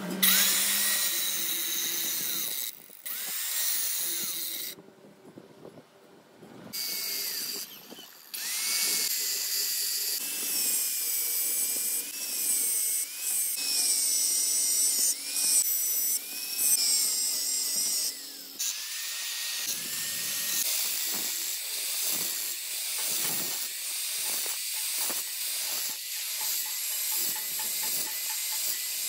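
Angle grinder grinding the steel splined shaft of a truck's spiral bevel pinion, its whine wavering in pitch as the disc bites. The grinding drops off briefly a few times, longest about five seconds in.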